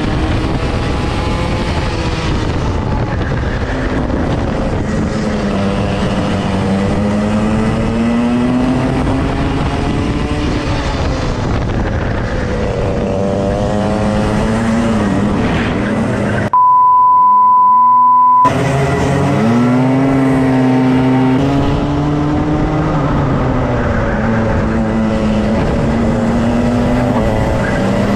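Race kart engines at speed, the pitch climbing along the straights and dropping off into the corners, with another kart close ahead. About two-thirds of the way through, the engine sound cuts out and a steady high beep plays for about two seconds, then the engines come back.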